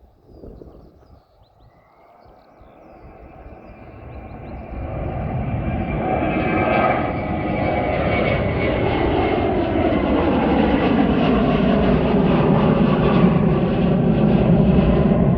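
Airbus A320-232 jet's IAE V2500 turbofan engines, faint at first, with a whine that rises in pitch, then growing steadily louder over a few seconds and staying loud: the airliner running at high thrust during a go-around.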